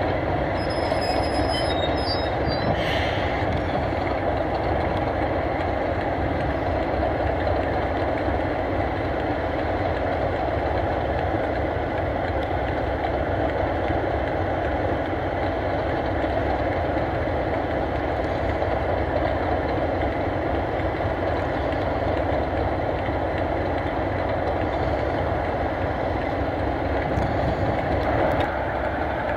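A pair of Class 37 diesel-electric locomotives running steadily, their English Electric V12 diesel engines giving an even, unchanging sound.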